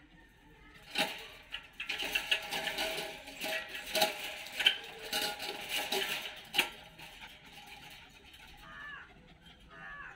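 Wire dog crate rattling and clinking as a small dog scrambles and paws about inside it, starting about a second in and dying down after about six seconds.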